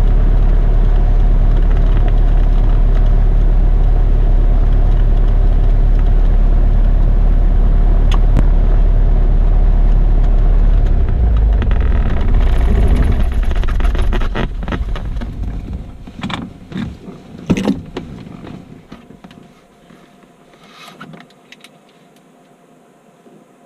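A Cessna 172's piston engine and propeller idle steadily, then are shut down about two-thirds of the way in: the engine runs down and stops over a couple of seconds. A few clicks and knocks follow as the propeller stops and switches are turned off.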